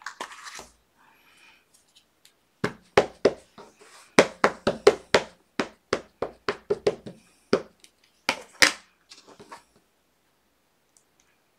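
Rubber stamp tapped against an ink pad and pressed onto paper on a tabletop. A run of about twenty quick taps starts about two and a half seconds in and stops near nine seconds.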